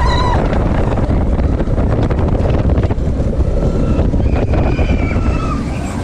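Wind buffeting the microphone: a heavy, gusty low rumble with crackle throughout.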